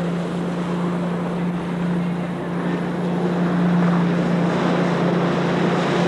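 Tow boat's engine running at a steady pitch under a broad hiss of water spray and wind on the microphone, the hiss growing a little louder about four seconds in.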